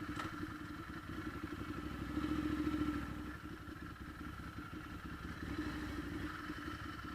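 Motorcycle engine running with a steady firing pulse, swelling louder for about a second two seconds in.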